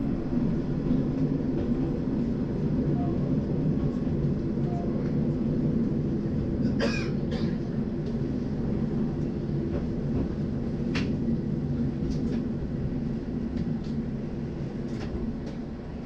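Nishikigawa Railway diesel railcar running on single track, heard from inside the cab as a steady low rumble. There is a brief squeak about seven seconds in and a sharp click around eleven seconds. The rumble eases near the end as the train slows into a station.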